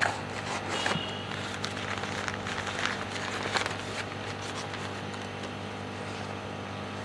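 Plastic packing bags crinkling and rustling in a series of quick crackles as the shipped fish are handled, dying away after about four seconds. A steady low hum runs underneath.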